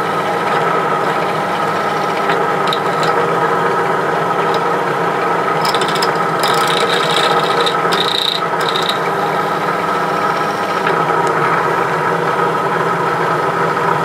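Drill press running steadily, its bit cutting into the rivet post of a die-cast metal toy car to drill out the staking, with a scratchy scraping of metal that grows sharper about halfway through.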